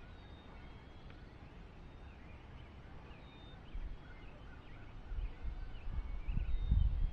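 Faint, scattered bird calls, short chirps in the woods, over a low rumble that grows louder near the end.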